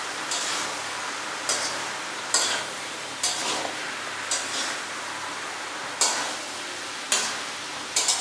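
A spatula scraping and stirring vegetables in a steel pan, one short, sharp scrape about once a second, over a steady hiss of frying.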